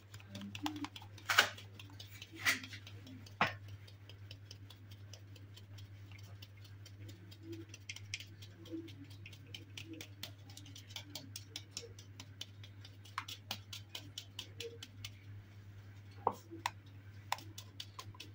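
Green plastic mesh sieve being tapped and shaken to sift flour into a mixing bowl: a rapid run of light ticks, with three louder knocks in the first few seconds.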